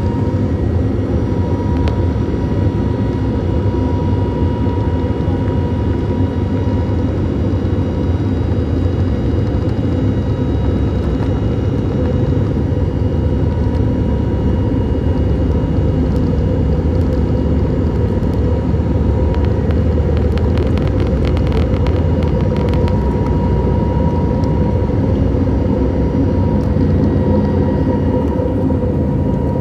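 Airbus A320neo cabin noise: a loud, steady rumble of the jet engines and rushing air, with a thin steady whine above it. A run of faint rattling clicks comes about two-thirds of the way through.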